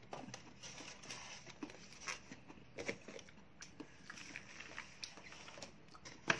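Disposable plastic food containers and a plastic bag being handled on a table: scattered light clicks and crinkling, with a sharper click near the end.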